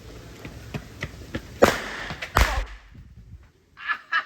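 Fireworks going off: a few small crackles, then two loud sharp bangs about three-quarters of a second apart, the second with a deep boom that dies away.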